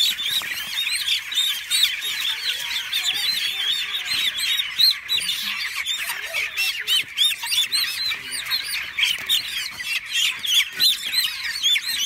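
A large flock of young chickens peeping: many short, high, overlapping cheeps that merge into a dense, unbroken chorus.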